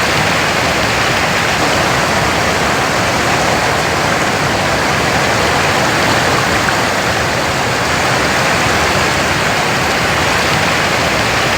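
Waterfall: water pouring steadily, an even, unbroken wash of noise.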